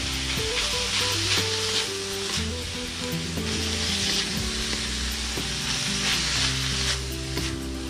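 Sliced carrots and green beans with ground pork sizzling in hot oil in a wok, tossed with a wooden spatula that scrapes across the pan in repeated strokes. Background music plays underneath.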